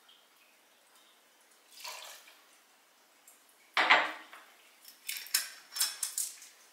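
Glassware clinking and knocking while whisky is measured out: a soft knock about two seconds in, one sharp loud clink near the middle, then a quick run of lighter clinks and taps.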